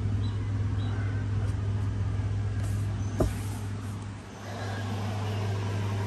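Steady low machine hum from running equipment, with a single sharp click about three seconds in and a brief drop in level a second later.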